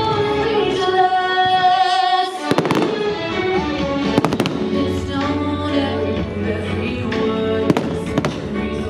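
Fireworks bursting over a loud music soundtrack of held notes. There are sharp bangs about two and a half seconds in, a quick cluster around four seconds in, and two more near the end.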